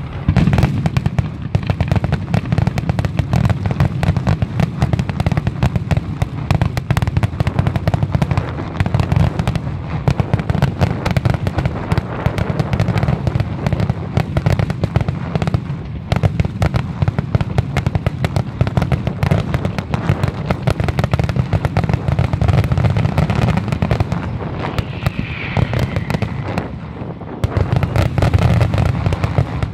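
Aerial fireworks display: a dense, continuous barrage of shell bursts and crackling, many bangs a second over a deep rumble, easing for a moment near the end before picking up again.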